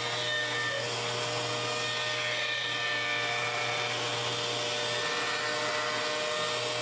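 Table-mounted router running at high speed with a round-over bit, cutting the edge of a wooden cutting board as it is fed along the bit. A steady whine with a hiss of cutting.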